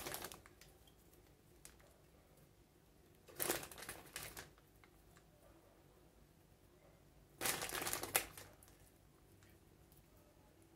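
Plastic bag crinkling as it is handled, in three short rustling bursts about four seconds apart: right at the start, about three and a half seconds in, and about seven and a half seconds in. Faint room quiet between them.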